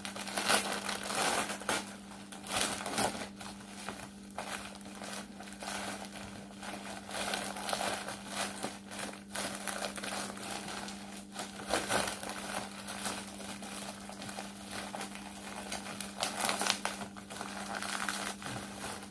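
Plastic packaging (a courier mailer and its inner plastic wrapping) crinkling and rustling as it is pulled open by hand, unevenly, with louder crackles every second or two.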